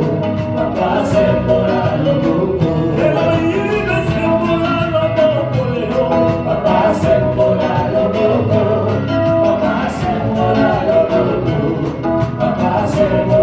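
Live gospel worship music: a band with drums, plus singing voices, keeping a steady beat.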